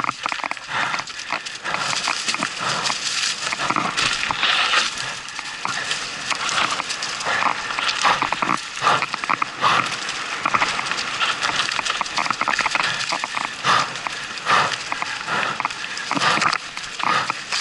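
Canyon Strive mountain bike clattering down a rough dirt trail: tyres on dirt and roots, with rapid, irregular knocks and rattles from the frame and chain.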